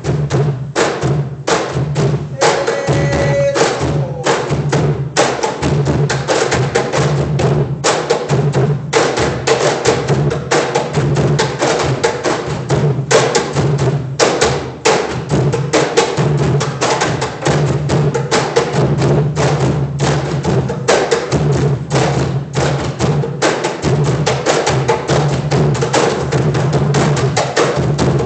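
Ensemble of Afro-Peruvian cajones played together: a fast, dense rhythm of hand slaps and deep bass tones that never lets up.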